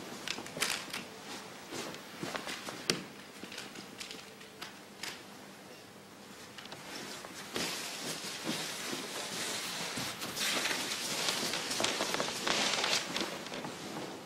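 Kimono silk rustling and stockinged feet sliding on the carpeted stage as players get up, walk past each other and kneel again, with scattered light taps and knocks in the first few seconds.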